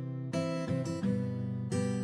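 Instrumental background music: a melody of pitched notes, each starting sharply and changing every fraction of a second.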